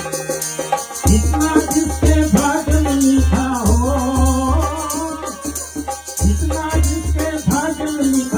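Hindi devotional bhajan to Shiva: a singing voice over a steady hand-drum beat and a jingling rattle. The drum drops out for a moment at the start and comes back in about a second in.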